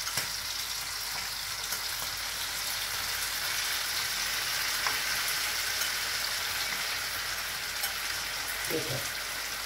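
Chopped peppers and tomato frying in oil in a frying pan: a steady sizzle.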